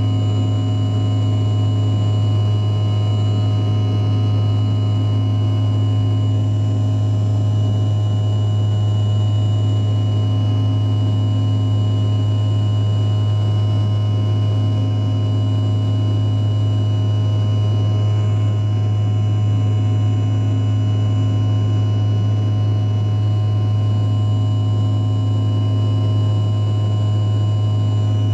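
Jet airliner cabin noise in cruise or descent: a loud, steady engine and airflow drone with a strong low hum and several steady high whining tones, and a slow regular pulsing in the hum every few seconds.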